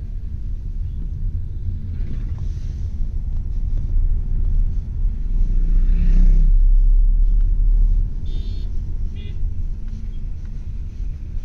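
Engine and road rumble heard from inside a moving car. The rumble swells for about two seconds midway as a motorcycle passes close by. Two short high tones follow just after.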